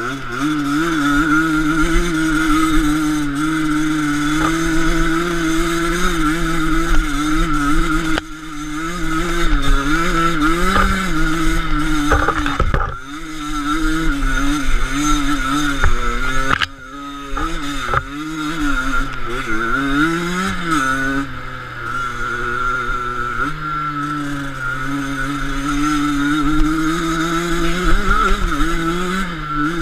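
Enduro motorcycle engine running under the rider, its pitch rising and falling as the throttle opens and closes over rough ground, with the throttle briefly shut twice, about eight seconds in and again near the middle.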